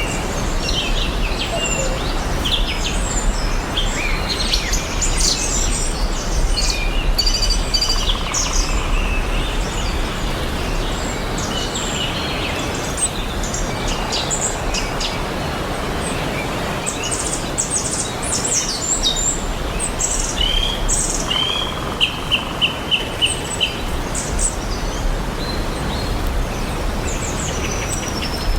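Several birds chirping and calling over a steady background hiss, with a quick run of about six repeated notes about three-quarters of the way through.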